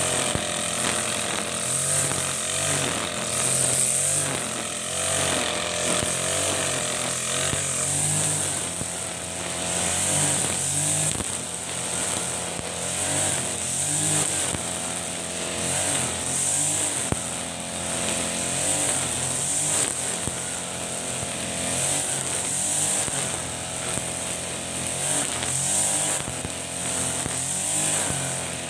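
Ogawa GX35-type four-stroke backpack brush cutter running under load, its engine note rising and falling about every two seconds as it is swept through the grass. The nylon trimmer line hisses through the grass in pulses with each sweep.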